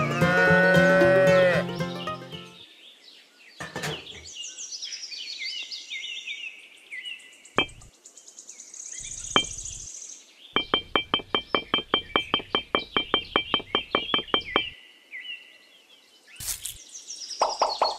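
A cow mooing with a long falling call for the first couple of seconds. Then birds chirp and trill, with a few sharp knocks and a fast run of clicking, about six a second, lasting about four seconds.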